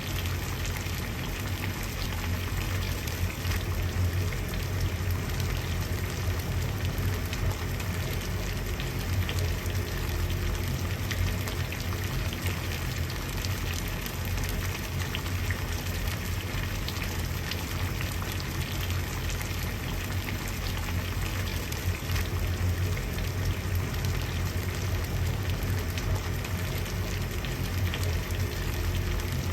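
Water at a steady boil: dense, even bubbling full of small pops, with a low rumble underneath.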